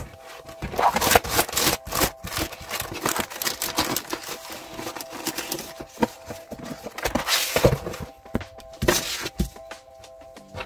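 Paper and plastic sheets being handled: rustling and crinkling in irregular bursts, loudest about a second in and again around seven to nine seconds in.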